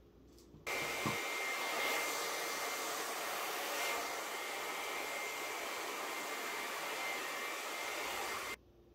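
Hair dryer switched on under a second in, blowing steadily with a thin high whine, then switched off near the end. It is blowing across wet acrylic pour paint to spread it and bring up more cells.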